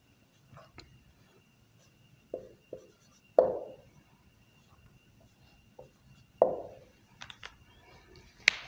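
A marker drawing and tapping on a whiteboard, with scattered light clicks and a few sharper hollow knocks on the board. The two loudest knocks come about a third of the way in and again a little past halfway. A faint steady high whine runs underneath.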